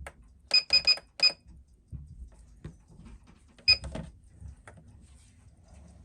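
Quick sharp clicks with a short bright ring, four in a row about half a second in and one more near four seconds, with light handling noise between, as a watch movement is set up on a timegrapher.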